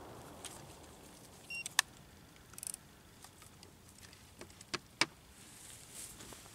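The last of a rifle shot's echo dying away, then a few sharp metallic clicks and knocks as the rifle is handled and laid down on a wooden shooting bench, the loudest about two seconds in and again near five seconds.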